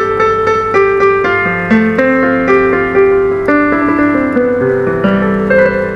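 Roland E-X30 arranger keyboard's piano voice being played with the sustain on, so that a melody of new notes every half second or so rings over the held ones.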